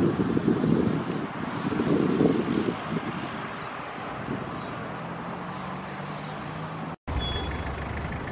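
Wind buffeting the microphone in gusts for the first few seconds, settling into a steady low hum of airport machinery. The sound drops out for an instant near the end.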